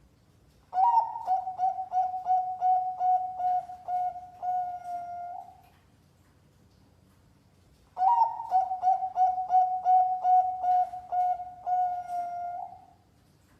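Zebra dove (perkutut, Bangkok-bred line) cooing: two song phrases of about five seconds each, a quick run of repeated whistled coos at one steady pitch, each phrase ending on a longer held note.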